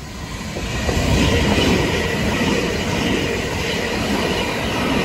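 Two coupled Southern Class 377 Electrostar electric trains pass through the station at speed. The rush of wheels on rail swells about a second in as the train arrives, then stays loud while the coaches go by close to the platform.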